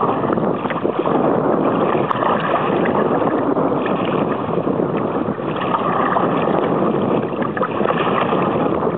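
Choppy water splashing and rushing against the hull of a moving kayak, mixed with wind noise on the microphone, as a steady loud rush.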